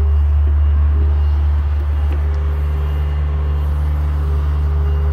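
John Deere 50G compact excavator's diesel engine running steadily as the machine swings its boom and bucket, a deep hum with a faint whine coming and going over it.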